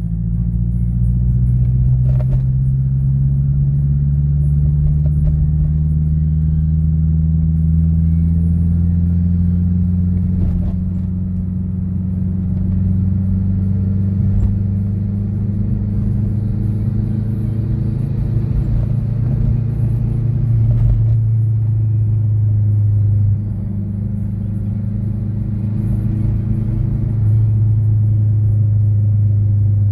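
Mazdaspeed6 turbocharged 2.3-litre four-cylinder engine and 3-inch exhaust with an Apexi N1 muffler, heard from inside the cabin while driving: a steady low drone whose pitch climbs slowly as the car picks up speed, then changes in pitch and loudness a few times after about twenty seconds.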